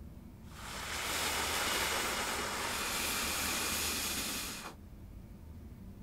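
A rushing hiss of air-like noise swells in about half a second in, holds steady for about four seconds, and cuts off sharply.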